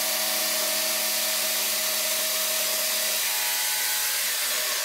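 Electric jigsaw cutting a slot through a methacrylate (acrylic) sheet: steady motor hum under the rasping hiss of the reciprocating blade, easing off near the end.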